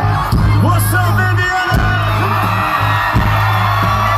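Live country band playing loudly through a concert PA, with a heavy pulsing bass and sustained melody lines, and whoops from the audience.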